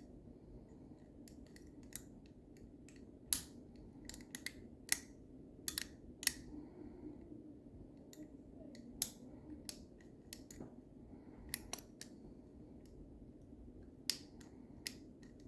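Small, irregular metallic clicks and ticks of a lever-lock pick and tension tool working inside a Yale lever lock, lifting and springing the levers, over a faint steady hum.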